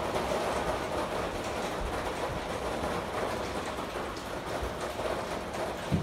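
Hail and rain falling steadily on a wooden deck and yard, an even rushing patter, with a short thump near the end.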